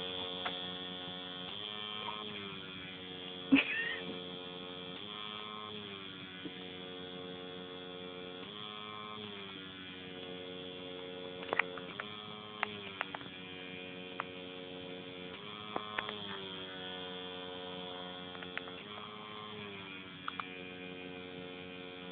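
Domestic cat purring steadily while sucking on a child's ear, the buzzy purr shifting in pitch every second or two with each breath in and out. A few short clicks come through, one louder about three and a half seconds in.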